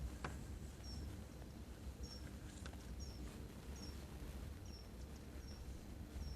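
A small bird repeating a short, high call note about eight times, roughly once every half-second to second, over a steady low rumble, with a couple of faint clicks.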